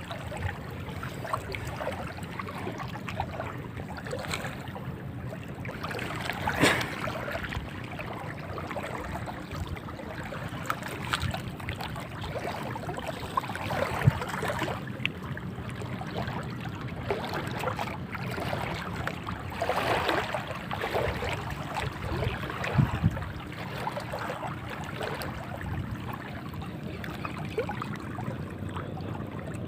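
Sea water lapping steadily, with scattered small knocks and splashes, one a little louder about a quarter of the way in.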